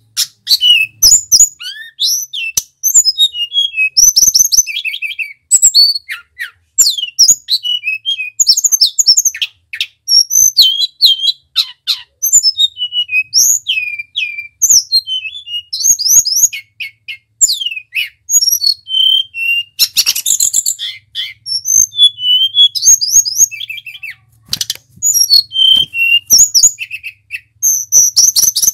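Caged male blue flycatcher (tledekan) singing a long run of rapid, high whistled phrases, many falling in pitch, with short pauses between bursts.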